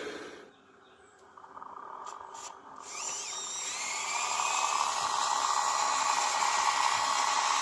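Earthmoving machinery running with a steady high whine that builds up about three seconds in, after a brief quiet stretch.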